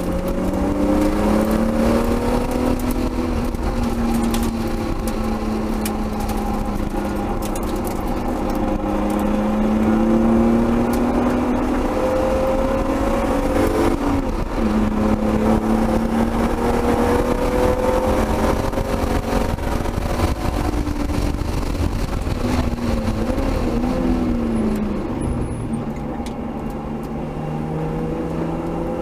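Turbocharged 1999 BMW M3's inline-six at full effort from inside the cabin, revs climbing repeatedly through the gears and falling off sharply for braking about halfway through and again near the end, over a steady low rumble of road and wind noise.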